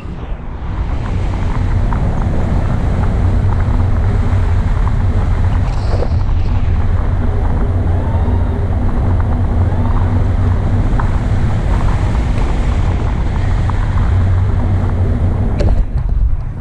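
Wind buffeting the microphone of a pole-mounted action camera in flight under a tandem paraglider: a loud, steady low rumble that eases briefly just before the end.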